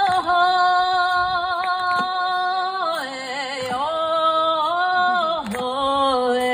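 A single voice sings a Suō-Ōshima kudoki-uta folk ballad in long held notes with small wavering ornaments. The melody steps down in pitch about three seconds in and again near the end.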